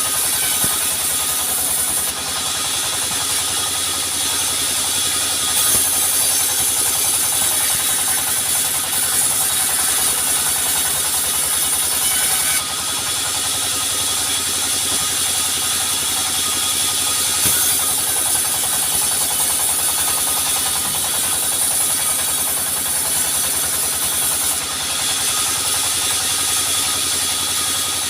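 Sawmill machinery running steadily, with a high-pitched noise that grows louder and drops back in stretches of several seconds.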